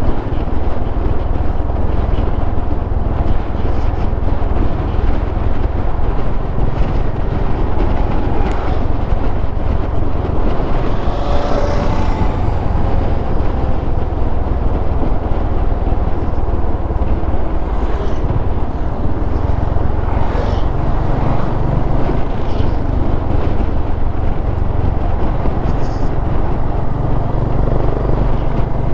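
Honda H'ness CB350's single-cylinder engine running steadily while riding, under a steady low wind rumble on the microphone.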